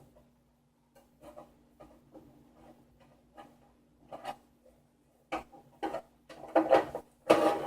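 Light clicks and taps from 3D printer parts and wires being handled by hand while a panel is fitted. The taps are sparse and faint at first, then louder and more frequent in the last couple of seconds.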